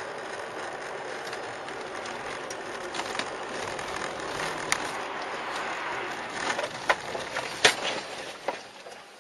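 Steady road and engine noise inside a moving car. From about five seconds in come a string of sharp knocks and clatters, loudest near the end, as snow and ice thrown up by a passing truck hit the windshield.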